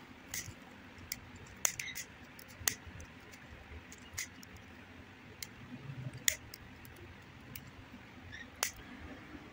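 Light handling noise: scattered small sharp clicks and taps at irregular moments, over a faint steady room hiss.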